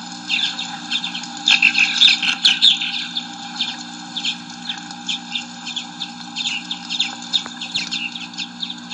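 Recorded sound effect of many small birds chirping in quick, short calls, thickest in the first few seconds and thinning out later, played back from a vinyl listening record over a steady low hum.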